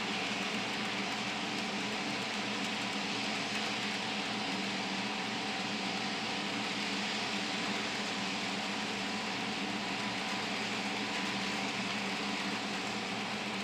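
HO scale Life-Like Proto 1000 Southern Pacific NW-2 model locomotive pulling freight cars around the track: a steady hum of its motor and wheels rolling on the rails.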